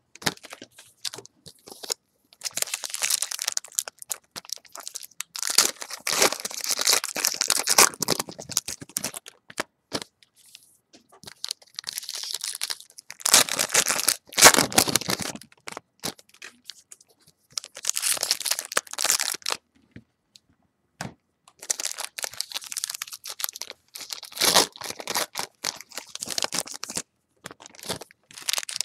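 Trading-card pack wrappers crinkling and tearing as packs are ripped open and the cards handled, in irregular bursts of a second or two with short pauses between them.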